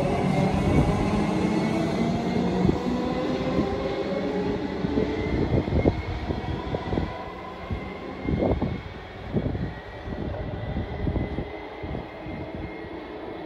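Comeng electric suburban train pulling away: traction motors whine with several steady tones that rise slightly as it speeds up, then the sound fades as it moves off, with a few low thumps in the second half.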